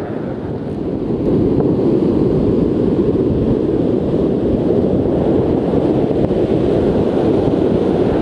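Wind buffeting the microphone over the steady wash of surf breaking on the shore, growing louder about a second in.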